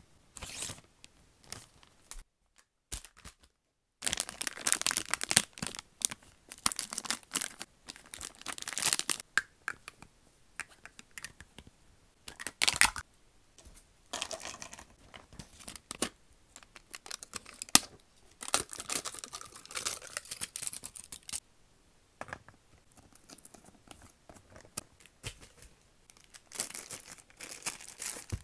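Plastic packaging crinkling and rustling as it is handled and torn open: a resealable plastic bag and the clear wrap around a toy, in irregular bursts with a brief total silence a couple of seconds in.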